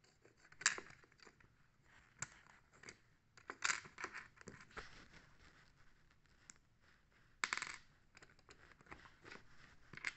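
Lego bricks handled by hand on a tabletop: irregular light plastic clicks, clacks and short scrapes, a few louder than the rest.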